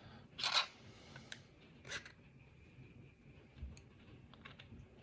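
Faint scrapes and light clicks of small lock pins and springs being handled with tweezers while a pin-tumbler lock is taken apart. There is a short rub about half a second in and another near two seconds.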